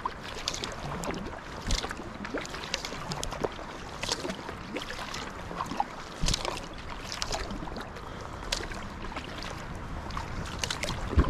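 Double-bladed paddle of a sea kayak dipping into calm water on alternate sides, with repeated small splashes and drips off the blades. A dull bump sounds near the end.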